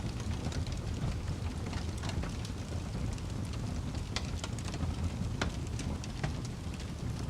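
Fire crackling, with frequent irregular sharp pops and snaps over a steady low rumble.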